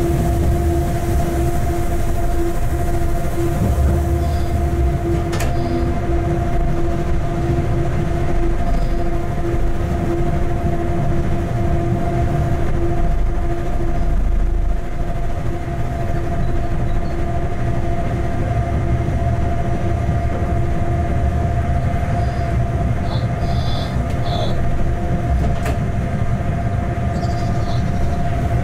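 Freight locomotive running light on the track, heard from inside its cab: a steady low rumble of wheels on rails with a constant hum, and an occasional click.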